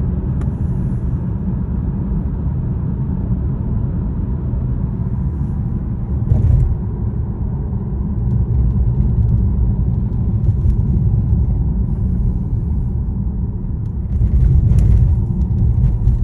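Steady low rumble of a car on the move, heard from inside the cabin, swelling briefly about six seconds in and again near the end.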